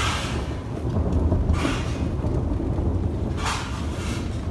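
Thunder rumbling low and continuously in a rainstorm, with short hissing swooshes repeating about every second and a half to two seconds.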